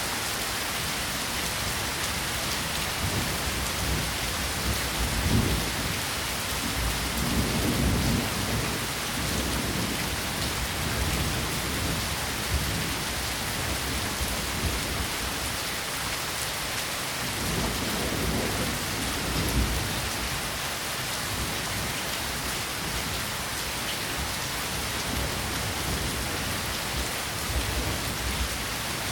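Steady rain falling, an even hiss, with a few brief low rumbles rising and fading at intervals.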